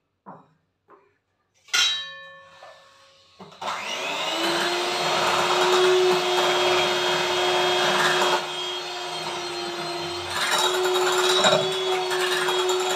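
Electric hand mixer beating chocolate cake batter in a bowl: it starts about three and a half seconds in, spins up quickly, then runs steadily. Before it, a few light taps and a sharp ringing knock about two seconds in.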